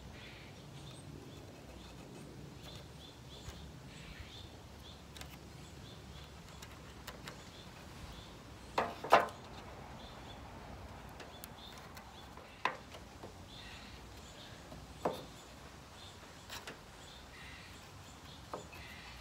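A few light knocks and taps as wooden pieces are handled and set down on the wooden frame. The loudest is a double knock about nine seconds in. Faint scattered bird chirps sit over a quiet outdoor background.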